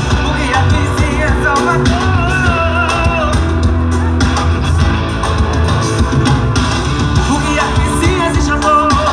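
Live band playing through a large concert PA system: a singer's wavering melody over heavy bass, guitar and drum hits.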